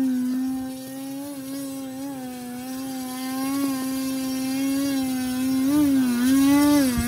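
Electric motor and propeller of a radio-controlled model airplane buzzing at a steady pitch, which starts wobbling up and down several times near the end.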